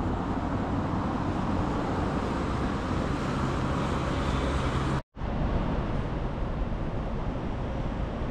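Steady city street noise, mostly road traffic, with a low engine hum for a couple of seconds before it cuts out for a moment about five seconds in.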